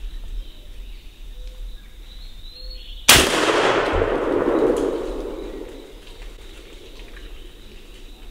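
A single gunshot about three seconds in, a sharp crack whose report rolls away as a fading echo for two to three seconds.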